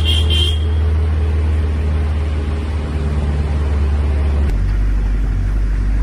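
A car driving, a steady low rumble that shifts abruptly lower about four and a half seconds in, with a brief high beeping near the start.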